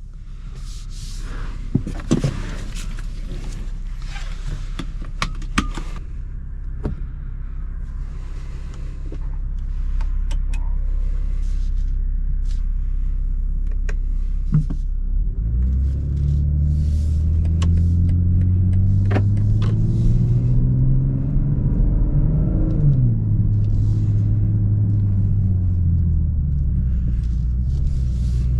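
BMW M240i xDrive's turbocharged 3.0-litre straight-six running with a low steady hum and scattered light clicks for about the first half. About halfway in it pulls away under acceleration: the engine pitch climbs, drops sharply at an upshift about two-thirds in, then climbs again near the end.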